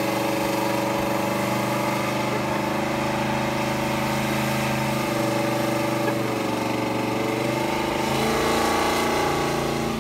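A classic car's engine held at high, steady revs during a burnout, with its rear tyres spinning and smoking on the road. The engine note shifts slightly about eight seconds in.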